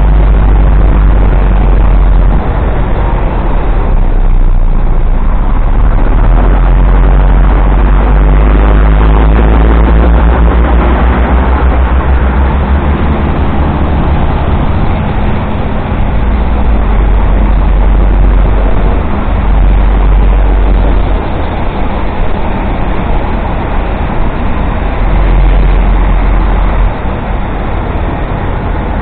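Motorcycle riding in traffic: heavy wind buffeting on the microphone over the engine and tyre noise, the engine pitch rising and falling with the throttle. The noise eases a little near the end as the bike slows beside a bus.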